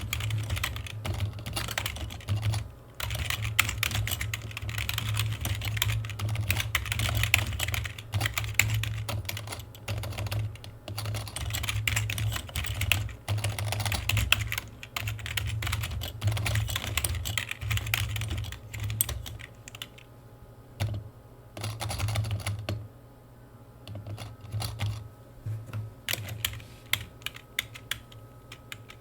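Typing on a computer keyboard: fast, continuous runs of key clicks for most of the stretch, then slowing to short bursts with pauses after about two-thirds of the way through.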